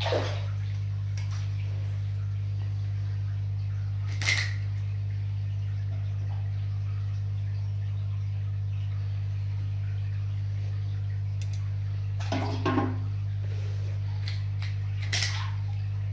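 A steady low electrical hum, with four short clicks and knocks spread across it: one at the start, one about four seconds in, a cluster about twelve seconds in, and one near the end.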